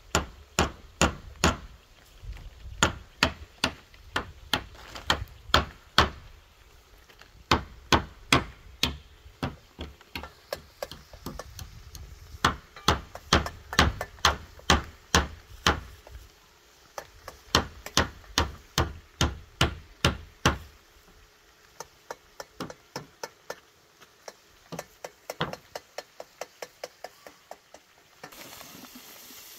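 A long run of sharp knocking blows, about two a second and heavy with a deep thud for most of the time, then lighter, quicker taps. A steady hiss comes in near the end.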